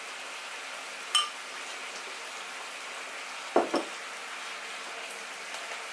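A metal spoon clinks once against a ceramic bowl about a second in, with a short ringing tone, then two quick dull knocks a little past halfway, over a steady background hiss.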